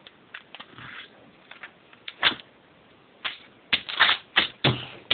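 A sheet of paper being folded and creased by hand: short crisp rustles and scrapes, sparse at first and coming quickly and loudest in the last second and a half.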